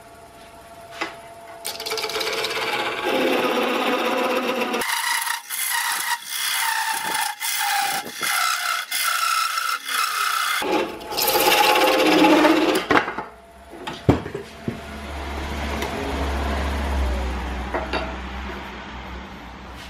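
Wood lathe parting off a small ironbark hollow form: a thin parting tool scrapes into the spinning foot with a loud, rasping cut. The cut cuts off suddenly about two thirds of the way through as the piece comes free, and a few clicks and a quieter low hum follow.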